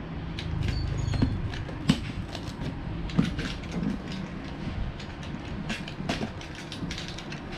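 Utility knife cutting the packing tape on a cardboard box: irregular clicks and scrapes of the blade and of hands on the cardboard, a few sharper ones about 2, 3 and 6 seconds in.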